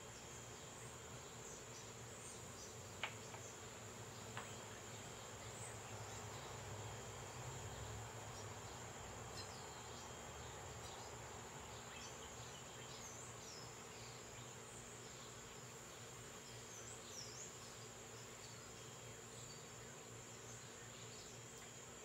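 Steady, high-pitched trilling of insects throughout, with a few faint, short, high chirps. Two sharp clicks about a second and a half apart come a few seconds in.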